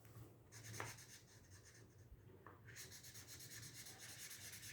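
Marker tip scratching on paper as an area is coloured in with quick back-and-forth strokes. It is faint, with a few separate strokes at first and a steady rapid run of strokes from about halfway through.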